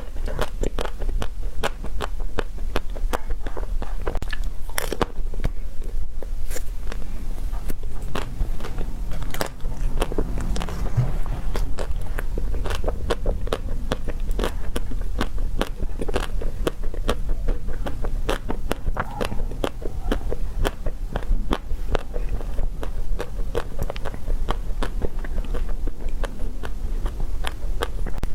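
Close-miked eating: continuous crunching bites and chewing, with many sharp crackling clicks throughout, over a steady low hum.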